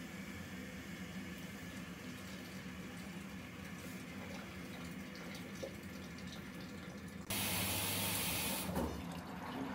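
Nortec Primus P6 commercial washing machine running mid-wash with a steady low hum, then about seven seconds in water suddenly rushes in, loud, for about a second and a half before it cuts back.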